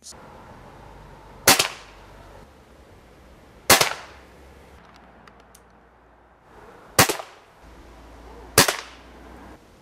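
PP700 SA pre-charged pneumatic air pistol firing four shots. Each is a sharp crack with a brief tail, unevenly spaced, the last two about a second and a half apart.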